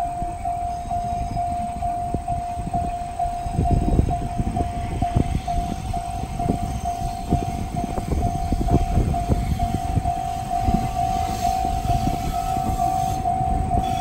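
Electronic railway level-crossing warning bell of the JR Central type, repeating its steady, rapid single-pitched ding. Under it, from a few seconds in, is an irregular low rumble with thuds.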